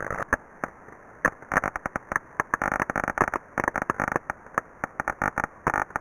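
Irregular crackling and popping, a rapid uneven run of sharp clicks, as heard through an ultrasound detector's headphone output.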